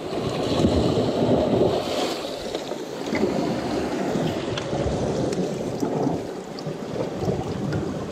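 Sea water sloshing and washing against shore rocks in an uneven surge, with wind buffeting the microphone.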